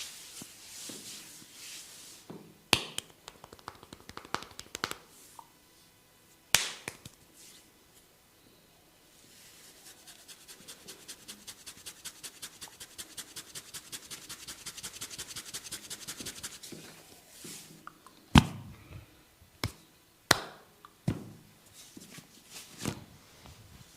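Hands at work in a barber's head massage: rubbing through hair, a long run of fast, even taps that swells and fades, and several sharp cracks and clicks, the loudest about 18 seconds in.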